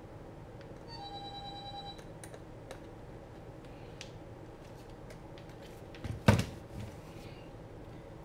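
A radio-control transmitter being handled and turned over on a workbench mat. A single steady electronic beep lasting about a second comes near the start, then a few light clicks. About six seconds in there is a sharp knock, the loudest sound, as the transmitter is set down, with smaller knocks just before and after.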